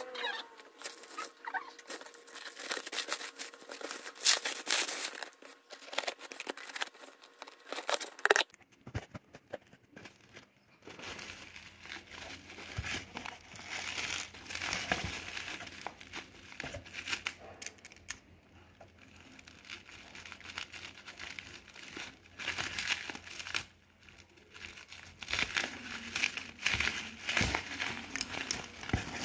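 Bubble-wrap packaging crinkling and rustling as a parcel is unwrapped by hand, with irregular crackles and the handling of a cardboard box.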